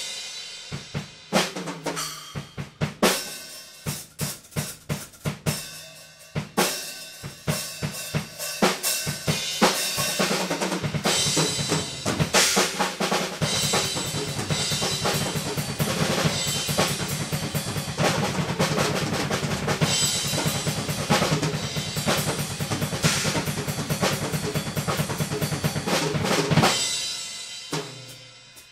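Acoustic drum kit played solo in free improvisation: spaced-out tom and snare hits at first, building to a dense stretch of rapid bass drum strokes under cymbals and snare from about halfway in. Near the end the fast playing stops and a few scattered hits follow.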